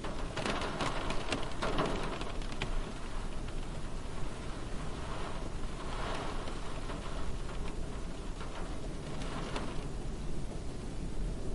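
Light rain falling on a car's roof and windows, heard from inside the car: a steady hiss of drops with irregular louder spells.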